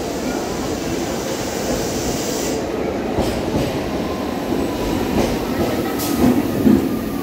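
MMTS electric multiple-unit suburban train pulling into the platform, its coaches rolling past with a steady rumble of wheels on rails and several sharp clicks over the rail joints.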